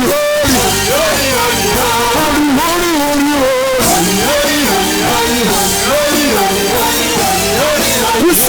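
Worship band playing: guitar and drum kit under a melody line that slides and bends in pitch.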